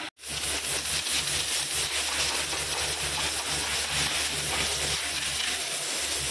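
Compressed air from a blow gun hissing steadily as a car's panel air filter is blown clean, over a low steady hum. The hiss begins abruptly just after the start.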